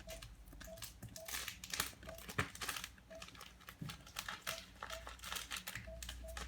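Faint crinkling and rustling handling noise, with a soft short beep repeating about twice a second.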